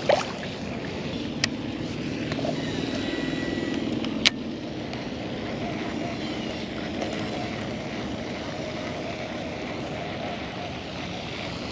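A small fish splashes back into the water at the very start, then a steady drone of a distant engine carries on, swelling a little between about two and five seconds in. Two sharp clicks sound, about a second and a half and four seconds in.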